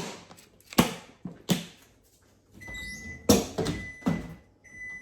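Kitchen items being handled and set down, a few sharp knocks on the counter, with a thin steady high tone coming in about halfway.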